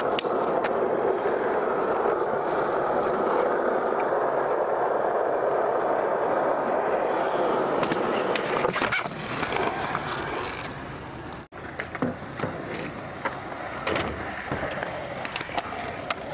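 Skateboard wheels rolling on concrete with a steady grinding rumble. After a brief gap come scattered sharp clacks of the board popping and landing, and the scrape of a ledge grind near the end.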